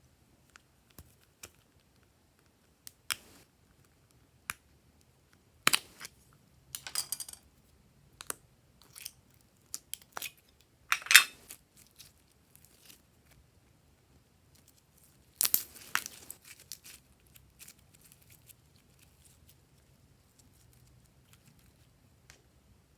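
Glossy slime being pressed, stretched and mixed by hand: scattered sticky clicks and pops, with a few short, louder crackling bursts.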